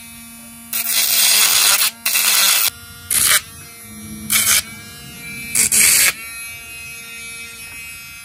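Small electric grinder running with a steady whine, broken by five loud bursts of grinding as the head of a metal knife-handle pin is ground down flat. The motor's pitch sags under the load and recovers between passes.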